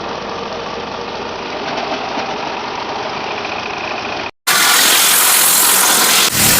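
Wood crusher machine running with a steady mechanical drone; about four seconds in the sound cuts off briefly and gives way to a louder, hissing noise.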